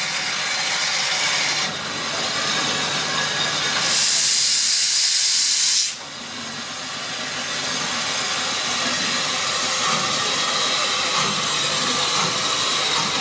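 Steam hissing from the LSWR M7-class 0-4-4T tank engine No. 30053. About four seconds in, a much louder, sharper hiss of steam blows for about two seconds from the front of the engine by the cylinders and cuts off suddenly, then the steady hiss goes on.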